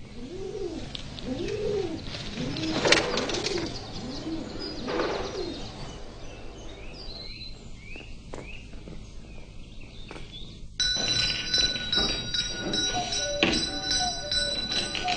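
Pigeons cooing, a repeated rising-and-falling call, with small birds chirping. About eleven seconds in, music with sustained tones starts abruptly.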